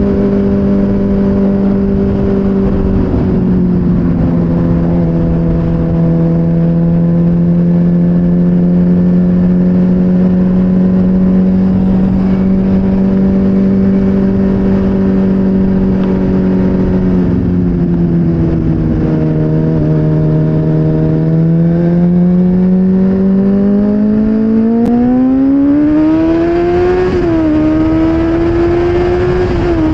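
Motorcycle engine at a steady cruise with wind rushing over the microphone, dropping in pitch twice as the throttle eases. About two-thirds of the way through it revs up steadily under acceleration, dips briefly at a gear change, then pulls on.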